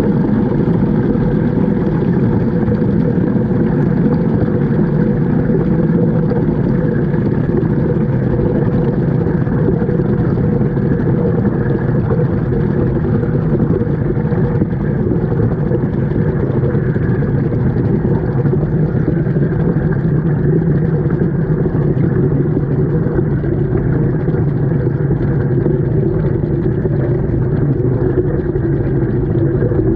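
Washing machine running, heard from a GoPro inside its drum: a steady, muffled, churning rumble with no breaks.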